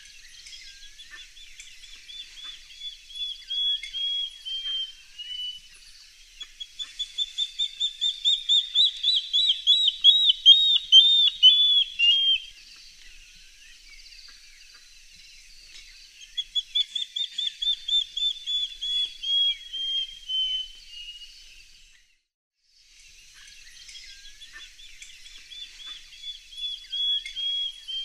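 Water thick-knee (water dikkop) calling: long series of rapid, piping whistled notes that swell in loudness and then fade and slide slightly lower at the end of each series. Four such bouts follow one another, with a short silent break shortly before the last.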